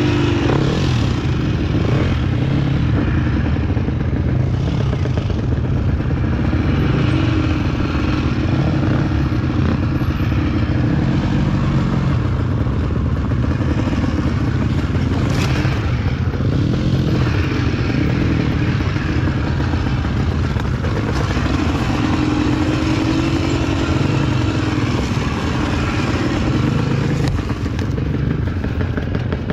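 Dirt bike engine, close to the microphone, revving up and easing off over and over as the bike climbs a steep, rough dirt trail under load.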